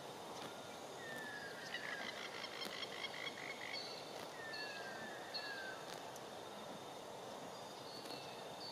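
High animal calls over a steady outdoor background hiss: short descending whistles, a run of quick repeated chirps a couple of seconds in, and more brief high notes near the end.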